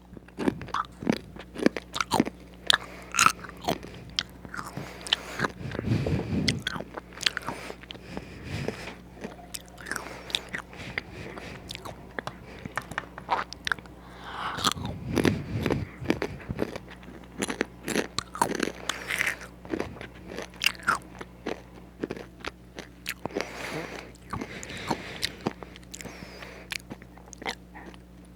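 Close-up crunching and chewing of crispy fries: a steady run of crisp bites and crackles, with a couple of heavier, fuller crunches along the way.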